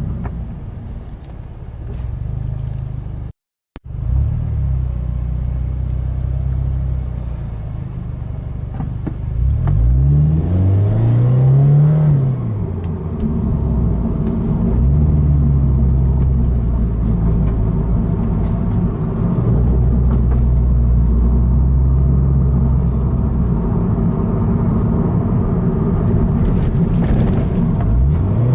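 Toyota GT86's flat-four engine through a Perrin non-resonated cat-back exhaust, heard from inside the cabin while driving. The engine climbs in pitch under acceleration about ten seconds in and drops at a gear change, then holds a steady note. The sound cuts out completely for a moment near the start.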